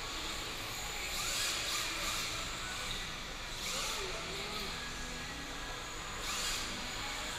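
Electric radio-controlled cars running on a tile floor: a high-pitched motor whine and tyre hiss that swells three times as the cars speed up, with short rising whines.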